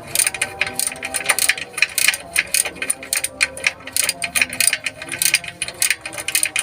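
Hand ratchet wrench clicking rapidly and irregularly while bolts are undone to open the clutch assembly.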